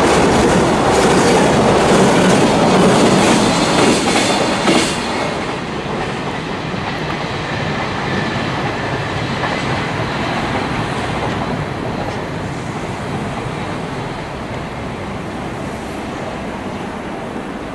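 Freight container train passing at speed, its wheels clacking rhythmically over the rail joints for the first few seconds. Then it drops off quite suddenly and fades slowly as the train moves away.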